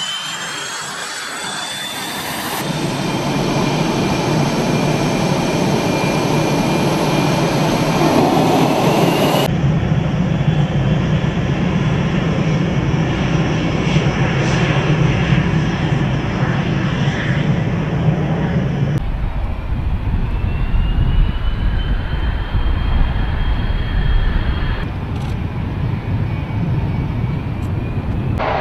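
F/A-18 fighter jet engines running loud, a heavy rush of jet noise with a high turbine whine that glides slowly up and down. The sound changes abruptly three or four times, as from one stretch of jet noise to another.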